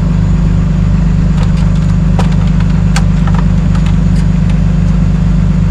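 An engine idling steadily with an even, pulsing throb, with a few light clicks between about one and a half and three and a half seconds in.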